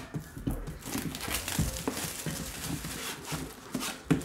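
A cardboard trading-card box being unwrapped and opened by hand: plastic wrap crinkling, cardboard rubbing and light knocks. A loud thump comes near the end.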